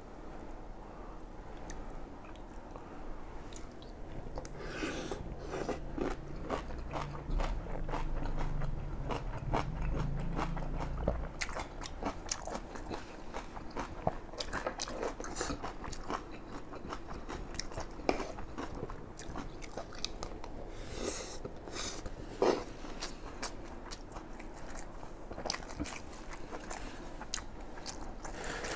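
Close-miked eating: chewing and crunching mouthfuls of kimchi and fried rice, with wet mouth sounds and many small clicks. A low hum runs for several seconds a few seconds in.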